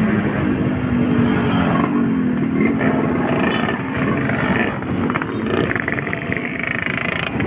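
Honda Supra four-stroke single-cylinder motorcycle engine running steadily under way, with wind rushing over the microphone. Another motorcycle passes close alongside about halfway through.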